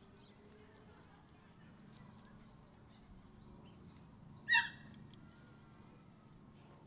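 A bird gives one short, loud call about four and a half seconds in, over a quiet outdoor background.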